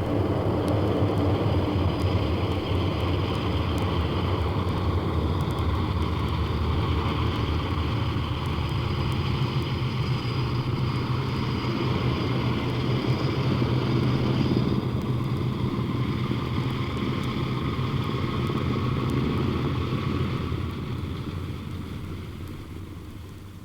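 A motor engine running steadily, fading out over the last few seconds.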